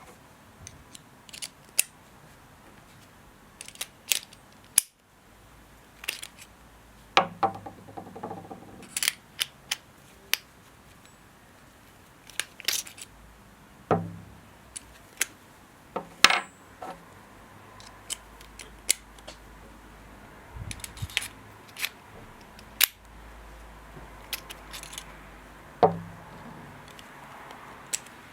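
Metal holesaws and their arbor parts being handled: irregular sharp clicks and metallic clinks, a few of them ringing briefly.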